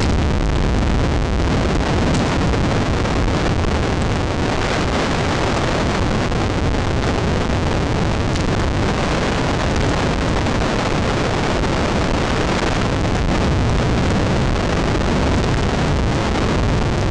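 Steady wind noise on the microphone, a constant low rumble and hiss with no break.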